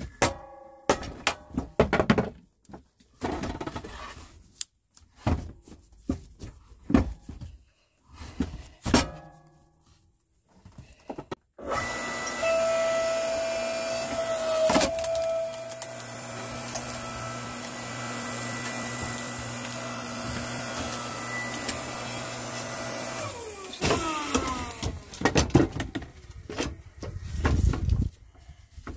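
Split firewood being handled and stacked, pieces knocking and clacking against each other. In the middle a steady motor hum runs for about twelve seconds, then winds down in pitch and stops, and the wood knocks resume.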